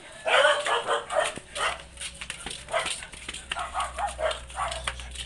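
A dog barking and yipping in a series of short sounds, the loudest about half a second in.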